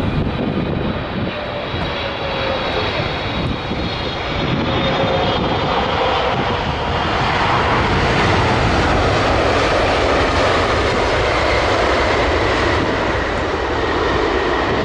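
Boeing 777's GE90 jet engines on the landing rollout: a continuous jet roar with faint whining tones, one of them falling early on. The roar swells louder about six to eight seconds in as reverse thrust is applied, and holds steady.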